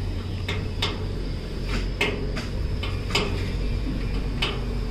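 Small sharp clicks and ticks at irregular intervals as wire ends and a plastic connector are handled and fitted, over a steady low hum.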